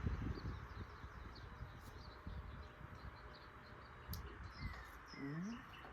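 Small birds chirping now and then over steady outdoor background noise, with a few low knocks near the start.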